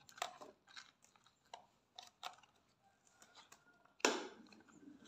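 A plastic packet crinkling and clicking in the hands, with scattered sharp crackles, then a sudden loud rip about four seconds in as it is torn open.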